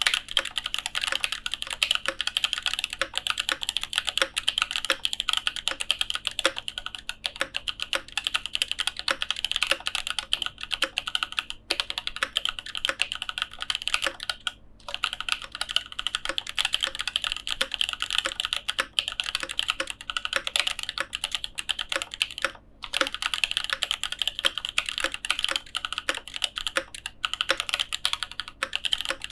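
Continuous fast typing on a custom mechanical keyboard with lubed and filmed EV-01 switches, tuned Equaz stabilisers and Aifei Mecha XO keycaps: a dense run of keystroke clacks, broken by three short pauses.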